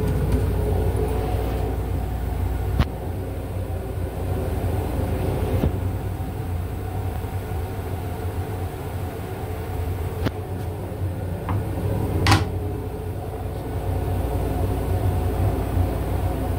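Steady low rumble of an M8 railcar running, heard inside its small restroom, with a few scattered clicks and a sharper knock about twelve seconds in.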